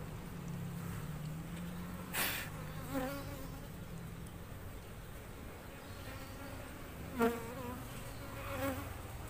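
Asian honey bees (Apis cerana) buzzing around an opened box hive: a steady low hum, with a few brief louder buzzes rising over it, the loudest about seven seconds in.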